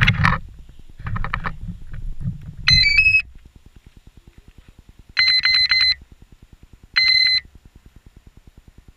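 Quadcopter's electronic speed controllers beeping through the motors: a quick rising three-note tune, then a run of short beeps about two seconds later and a single beep a second or so after that.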